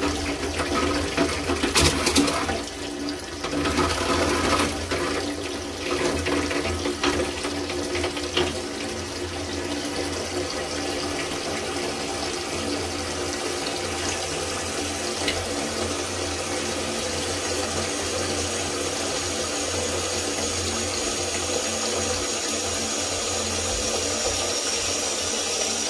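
Toilet cistern refilling through a newly fitted ball cock valve: a steady rush of water. A few knocks sound in the first several seconds, and a thin high hiss joins the rush from a little past the halfway mark.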